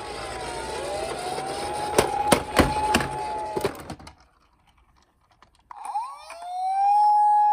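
Toy ambulance siren wailing: a tone rises and holds a steady pitch, with a few sharp clicks about two to three seconds in. It cuts off about four seconds in. After a short gap a new wail rises and holds steady.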